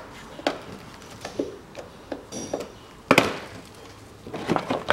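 Plastic push-in clips on a wheel-arch cover being prised out with a screwdriver: scattered short clicks and knocks of plastic and metal, the loudest a sharp knock about three seconds in, and a quick run of clicks near the end.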